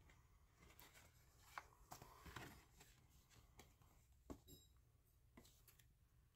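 Faint rustling and a few light clicks of paper and card being handled, as a small card is drawn out of a 7-inch record's paper sleeve.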